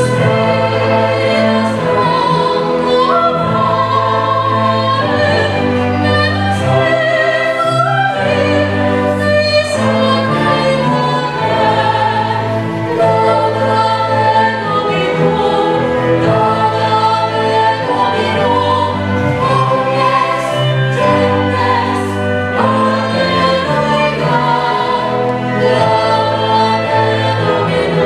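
A choir singing sacred music with a symphony orchestra, strings included, holding long notes over a steady bass line. A soprano soloist sings near the end.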